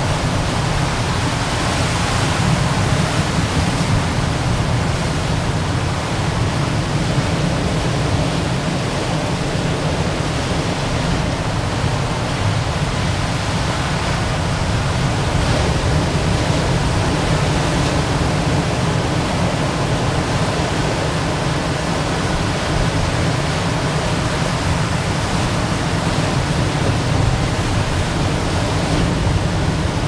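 Ocean surf washing in onto rocks: a steady, dense rush of water with slow, slight swells in loudness.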